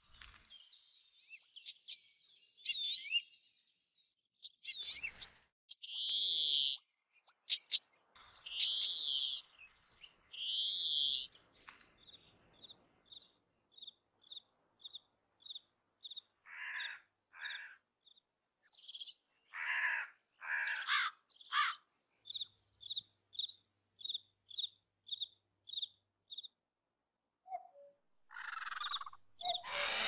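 Several wild birds calling: assorted chirps and whistled notes, then a long run of short, evenly spaced high notes about two a second, with a few harsher, raspy calls in the middle.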